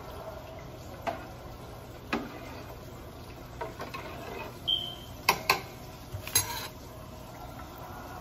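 A spoon stirring macaroni in a metal stockpot, knocking sharply against the pot several times. The loudest knocks come as a quick pair about five seconds in.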